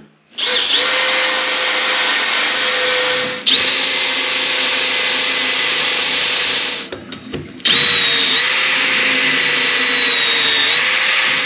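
Cordless drill with a tile drill bit boring into ceramic wall tile, running steadily with a high whine. It stops for under a second about seven seconds in, then starts drilling again.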